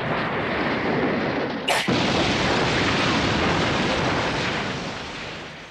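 Cartoon explosion sound effect: a loud, dense rumbling blast with a sharp crack about two seconds in, dying away near the end.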